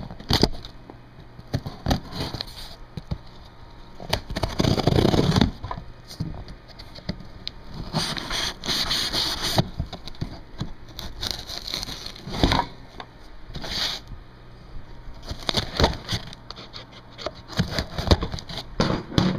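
Cardboard shipping box being opened and handled by hand: irregular scraping, tearing and crackling of cardboard and packing tape with sharp clicks, louder around five seconds in and again around nine seconds.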